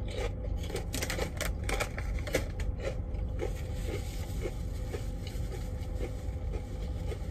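Someone chewing crunchy chips close to the microphone: crisp crunches over the first few seconds, then a steady chewing rhythm of about two bites a second, over a steady low hum.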